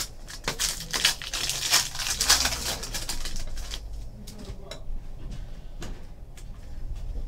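Foil wrapper of a Panini Prizm Collegiate Draft Picks trading-card pack crinkling as it is torn open, a dense crackle in the first few seconds. After that come softer rustling and light clicks as the cards are handled.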